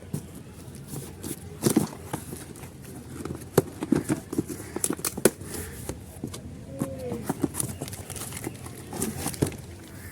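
Irregular clicks, knocks and light rattles of metal parts being handled as the old brake disc is pulled off a Maruti Suzuki WagonR's wheel hub.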